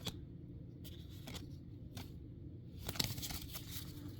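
Magic: The Gathering cards being handled and slid past one another: scattered soft clicks and light rustles, busiest about three seconds in, over a faint steady low hum.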